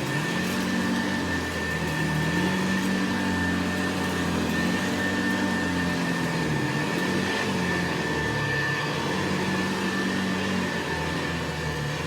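Vintage Hoover 707 vacuum cleaner running steadily while picking up rice, with a constant high motor whine over the rush of air and a low hum that wavers up and down in pitch.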